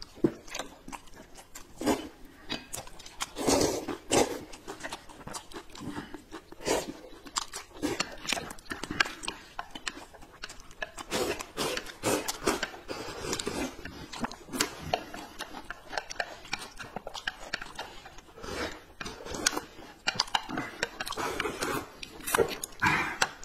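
People eating noodles close to the microphone: loud slurping of wide buckwheat noodle sheets, with chewing and lip-smacking in many short, irregular bursts.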